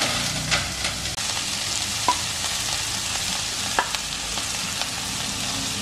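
Chopped ivy gourd, onion and grated coconut sizzling steadily as they are tipped into hot coconut oil in a kadai and scraped off the plate with a wooden spatula, with a few sharp clicks over the hiss.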